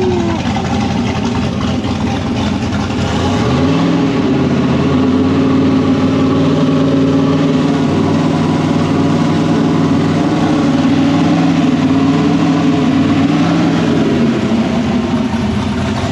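Freshly installed 388-cubic-inch LS V8 running shortly after its first start. It idles, then is brought up to a higher steady speed about four seconds in, held there for about ten seconds, and drops back to idle near the end.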